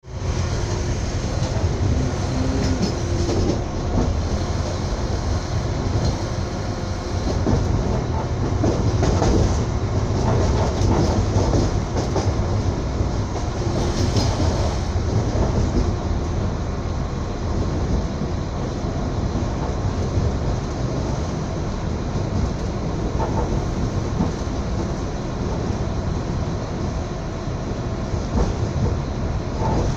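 A passenger train running along the rails, heard from inside the carriage: a steady low rumble of wheels on track, with a few louder clatters in the middle.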